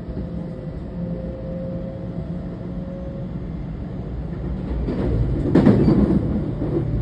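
Running sound inside a JR West 321 series motor car: the Toshiba IGBT VVVF inverter and traction motors whine, rising slightly in pitch, over a steady rumble of wheels on rail. About five seconds in, a louder rush of noise swells and fades.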